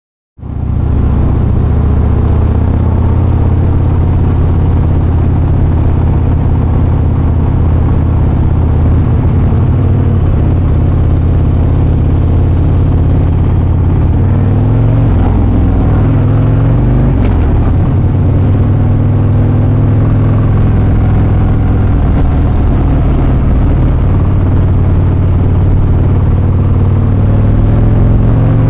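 Harley-Davidson V-twin motorcycle engine running loud and steady under way, its note shifting briefly about halfway through as the engine speed changes.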